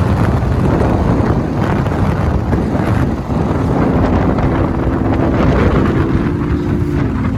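Vehicle travelling on the road, a steady rumble with wind buffeting the microphone. A few steady low tones come in about halfway through.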